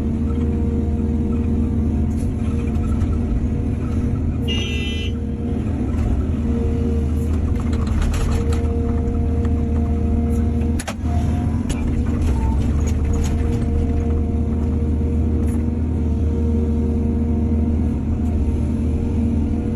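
Excavator's diesel engine running steadily under load, with a steady whine over the rumble. A short high-pitched tone sounds about four seconds in, and a few knocks come around the middle.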